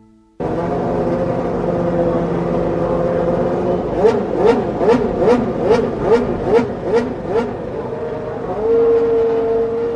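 A 1997 Formula One car's engine at high revs: steady at first, then the revs swinging up and down about twice a second for several seconds, then held steady before cutting off suddenly.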